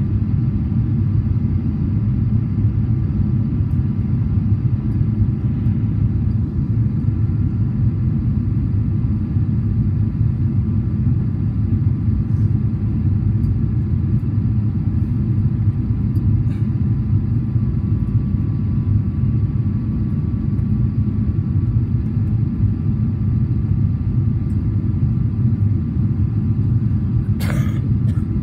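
Steady low rumble inside the cabin of a Boeing 777-300ER on approach with flaps extended: engine and airflow noise heard from a window seat behind the wing, with a faint steady whine over it. A single sharp click near the end.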